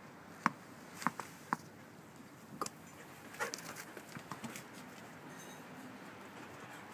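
Tennis ball and an Afghan hound's paws on a hard terrace floor: three sharp taps in the first second and a half, then more scattered taps and light patter as the dog runs.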